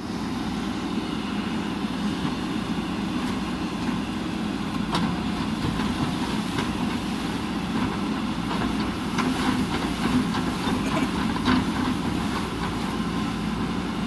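JCB 3DX backhoe loader's diesel engine running steadily while the backhoe works, with sharp knocks and clatter of the bucket against broken concrete, one about five seconds in and several from about nine to twelve seconds in.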